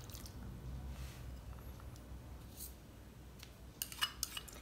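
Faint scraping and small clicks of a spoon and a small ceramic bowl as soaked, gel-coated basil seeds are scraped into a bowl of broccoli, with a quick cluster of clicks near the end.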